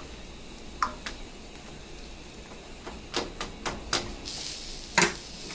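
Scattered clicks and taps at a stovetop skillet, with the loudest knock about five seconds in. A high, steady hiss of sizzling starts at about four seconds, as the burner is turned back up under the quesadilla.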